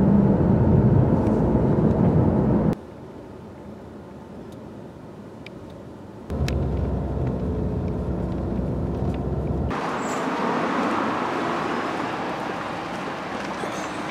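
Road and engine rumble heard from inside a moving car, in short clips cut together. The rumble drops abruptly to a quiet stretch about three seconds in and returns a few seconds later. About two-thirds of the way through it gives way to a steady outdoor hiss of street ambience.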